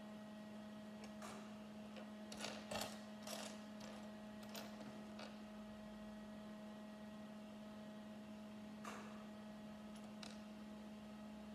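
Faint scattered clicks and taps of small plastic Lego minifigure parts being handled and pressed together, over a steady low hum.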